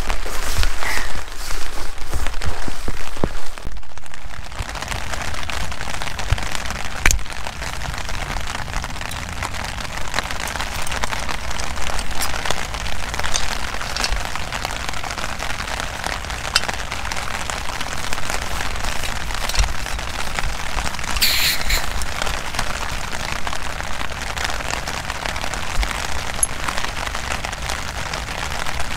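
Heavy rain falling steadily, thick with individual drops ticking on a surface, with one short louder hiss about three quarters of the way through.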